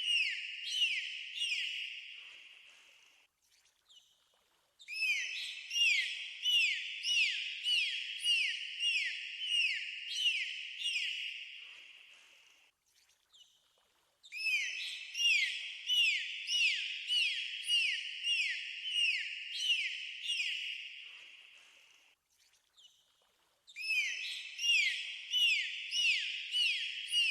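Dolphins whistling: a series of short rising whistles, about two a second, in bouts of several seconds that fade away, with brief pauses between bouts.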